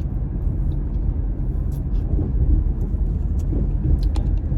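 Steady low rumble of a car, with a few faint clicks over it; it cuts off suddenly at the end.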